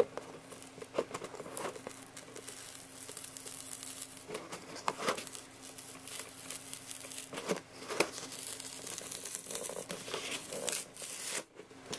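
A cardboard sign being peeled and ripped off a clear plastic packaging window: the stiff plastic crinkles and the glued cardboard tears in many small crackles.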